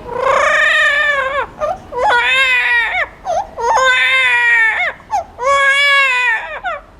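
A parrot mimicking a crying baby: four drawn-out wails, each about a second long, with short yelps in the gaps between them.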